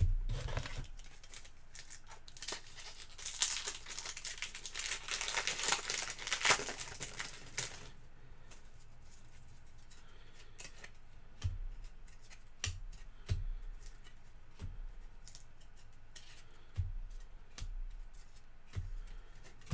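A foil trading-card pack wrapper being torn open and crinkled for several seconds, then scattered light clicks and soft knocks as the cards are handled.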